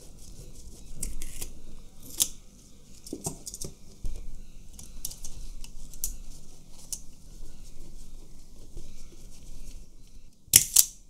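Small metallic clicks and ticks of a fine screwdriver and tiny parts being worked on the metal body of a 1960 Pentax S3 film camera, scattered irregularly, with two sharp clicks close together near the end.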